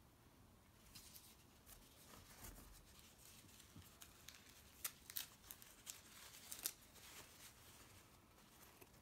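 Faint crinkling and rustling of white paper wrapping as hands unwrap small metal miniatures, a string of short crackles that grows busiest and loudest about five to seven seconds in.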